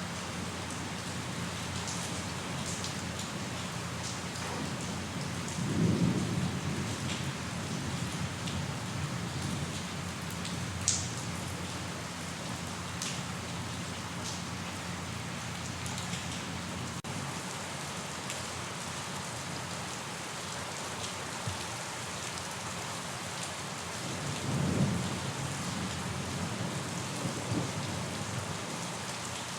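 Steady rain falling, with two brief low rumbles of thunder, about six seconds in and again near the end, and a few sharp drops ticking on a surface.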